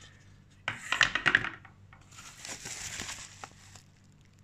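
Crinkling and rustling of plastic packaging being handled: a short, loud burst about a second in, then a longer, softer rustle.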